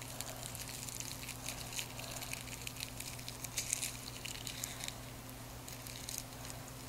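Aluminium foil crinkling faintly as hands squeeze a roasted garlic bulb wrapped in it, pressing the soft cloves out. There is a quick run of small crackles, thickest a little past the middle, that dies away about five seconds in.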